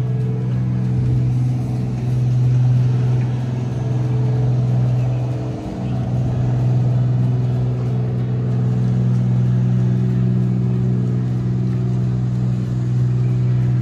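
A motor running with a steady, loud, low hum at one pitch, dipping briefly about six seconds in.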